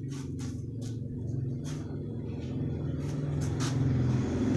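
A motor vehicle engine running steadily and growing louder toward the end, with several sharp clicks over it.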